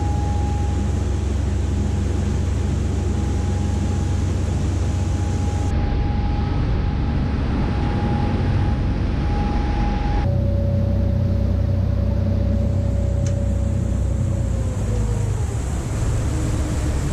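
Tour boat's engines running at speed, a steady low drone with a whine, over water rushing in the wake. The sound changes abruptly twice, and the whine drops in pitch near the end.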